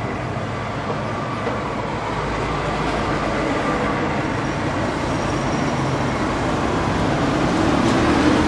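Steady rumble and hiss of background vehicle noise, growing louder near the end.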